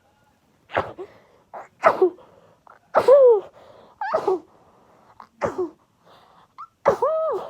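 A girl sneezing over and over in a sneezing fit: about six loud sneezes in quick succession, roughly one a second, each ending in a short voiced cry, with small intakes of breath between them.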